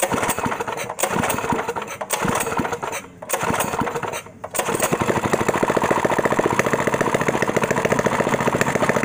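Predator 6.5 (212 cc single-cylinder) small engine, freshly cleared of a hydrolock, being pull-started with the choke on. It goes in several second-long stretches broken by short stops, then catches about five seconds in and runs steadily.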